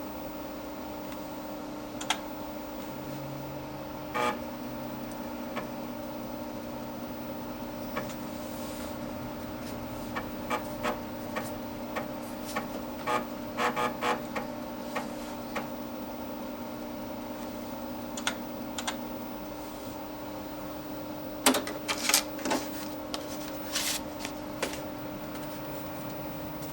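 Dimension 68000 computer running with a steady hum and scattered mechanical clicks: a quick run of clicks near the middle and a few louder clacks near the end, as it reboots its IBM PC emulation from a DOS boot disk.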